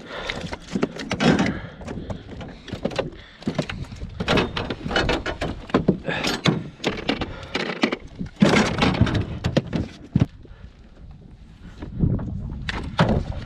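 Irregular knocks, thuds and clatter as a hooked redfish is brought in and handled aboard the boat.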